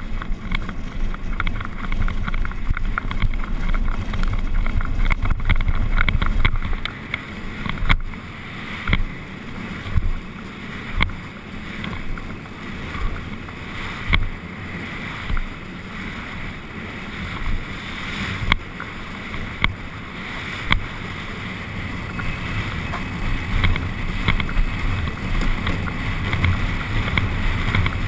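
Gravity-powered carrilana racing cart rolling fast down an asphalt road: a steady rumble of its small hard wheels on the tarmac and the rattle of the cart body, with sharp knocks every second or two as it hits bumps in the road.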